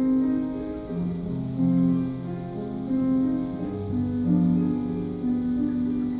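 Slow instrumental music led by piano, a melody of held notes over a low bass line, with no singing.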